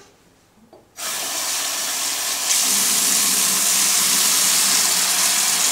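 Tap water running into a sink: turned on suddenly about a second in and running steadily, louder from about two and a half seconds in.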